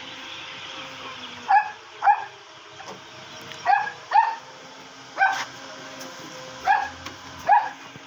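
A dog barking about seven times, mostly in quick pairs of short sharp barks, over a steady hum.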